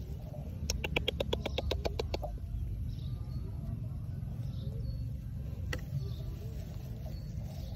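A rapid run of about a dozen sharp chirping clicks, roughly ten a second, lasting about a second and a half, from a small animal's call. It sits over a steady low rumble, with one lone click near the end.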